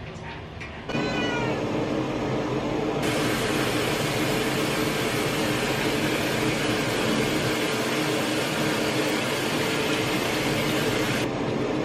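A domestic cat meows about a second in, over a steady hum. From about three seconds a bathroom tap runs with a steady hiss while a face is washed, and it cuts off suddenly near the end.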